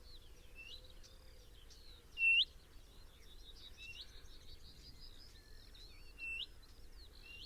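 Songbirds singing: a short whistled note that hooks sharply upward at its end, repeated several times and loudest about two seconds in and again near the end, with fainter chirps and twitters between.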